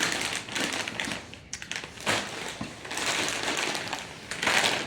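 Foil Doritos chip bag crinkling and crackling as it is handled and pulled at, in irregular bursts, loudest near the start and again near the end.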